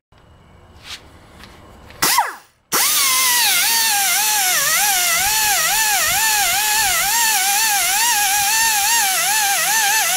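Pneumatic mini die grinder with an abrasive surface-conditioning pad, grinding rust off a cast-iron saw table. After a short burst that falls in pitch about two seconds in, it runs with a loud high whine over the hiss of compressed air. Its pitch wavers up and down regularly as the pad bears on the metal.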